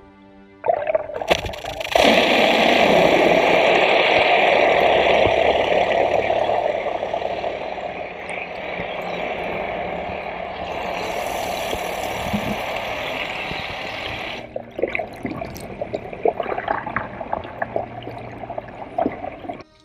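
Water rushing and splashing, loud and steady at first, then choppier with many small splashes from about 14 seconds in.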